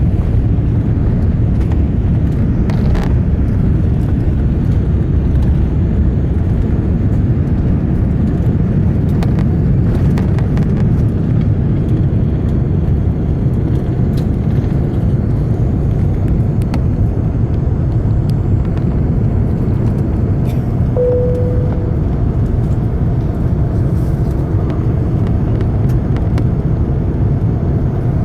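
Steady deep rumble inside the upper-deck cabin of a British Airways Airbus A380-800: its four Rolls-Royce Trent 900 engines and the airflow during the takeoff and climb-out. A short single tone sounds about two-thirds of the way through.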